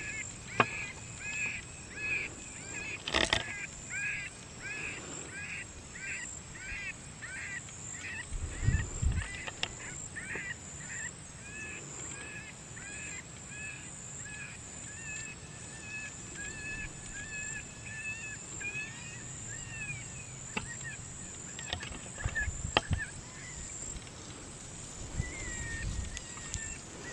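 A high, bird-like call repeated about twice a second, then drawn out into longer, fainter notes about halfway through, over a steady high insect drone. A sharp knock sounds about three seconds in.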